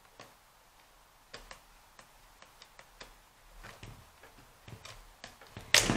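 Small, irregular clicks and ticks of a mini screwdriver turning a tiny screw into a plastic toy's battery cover, with one louder knock near the end.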